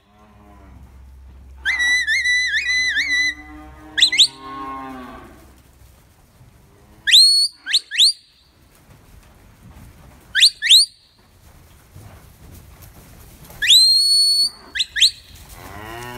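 Handler's shepherd-whistle commands to a herding dog: a warbling whistle about two seconds in, short sharp rising whistles that follow, and a long whistle near the end. Black Angus cattle moo between the whistles.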